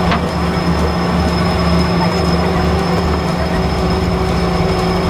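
Fishing boat's engine running with a steady low drone and a thin high whine above it.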